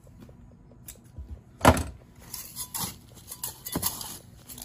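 Repotting handling sounds: one sharp knock about a second and a half in, then scattered light clicks and rustling as succulents, soil and pots are worked by hand.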